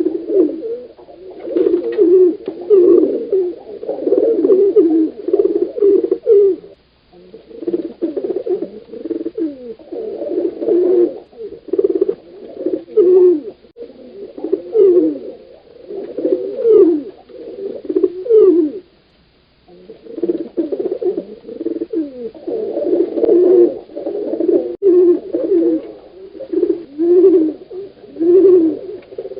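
Pigeons cooing: a run of repeated low, rolling coos that pauses briefly about a quarter and two-thirds of the way through.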